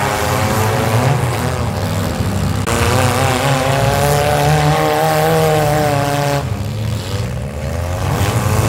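Several demolition derby cars' engines running and revving together, their pitches wavering up and down. The loudest revving drops away about six and a half seconds in.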